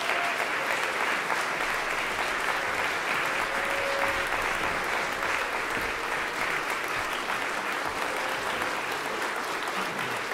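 Audience applauding steadily, a dense even clapping that holds at one level throughout.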